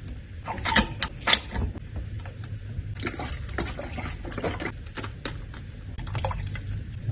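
A metal spoon knocking and scraping against a glass tumbler while mango is mashed, with the sharpest knocks about a second in. Near the end, coconut milk is poured from a carton into the glass.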